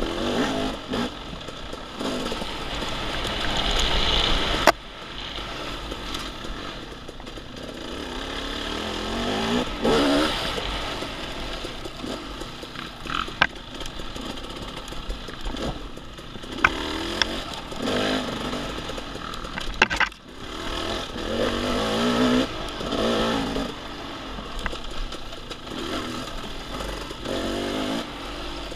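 Off-road dirt bike engine revving up and falling back over and over as it rides a trail, with sharp knocks and clatter from the bike, the loudest about five seconds in.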